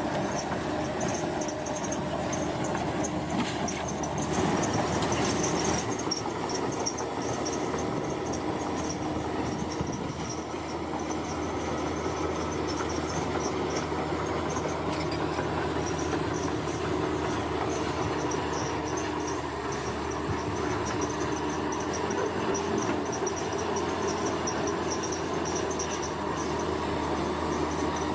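Bulldozer's diesel engine running steadily under load, a little louder about four to six seconds in, with insects chirping in a steady high pulsing trill.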